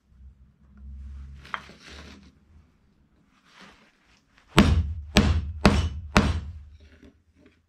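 Four sharp hammer blows on wood, about two a second, after quieter scraping and handling of wooden pieces.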